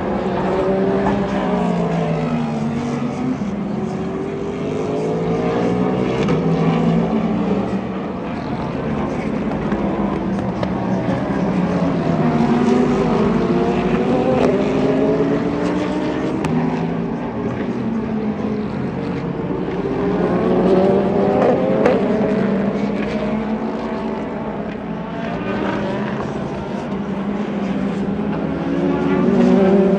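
IMSA sports-car race cars running past at speed one after another, several at once, their engine notes climbing through the gears and dropping back at each upshift.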